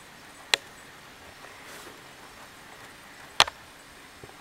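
Sharp clicks of a computer pointer button: one about half a second in, a quick double click about three and a half seconds in, and a faint click near the end, over faint background hiss.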